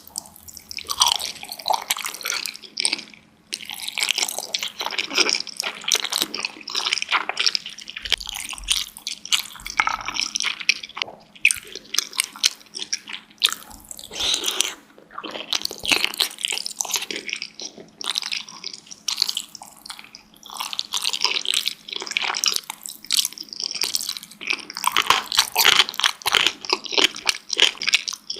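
Close-miked wet chewing of dumplings: dense smacking and squishing mouth sounds, with a few short pauses.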